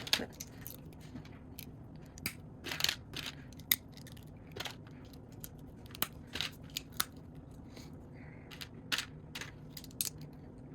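Plastic Lego bricks being handled and pressed together: irregular sharp clicks and light rattles, over a faint steady low hum.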